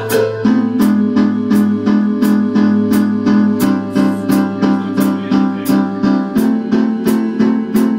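Instrumental music: a steady drum beat under sustained keyboard and guitar chords over a held bass note, the chords changing about half a second in, again near the middle and again near the end.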